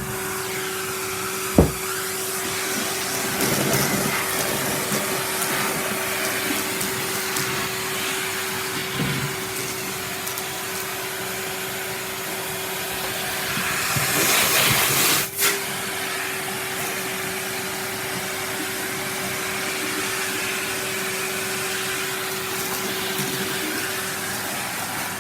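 Vacuum cleaner running steadily with a constant hum, picking up crushed hazelnut shells. There is a sharp knock about a second and a half in. About 14 seconds in there is a brief louder rush of air that cuts off abruptly.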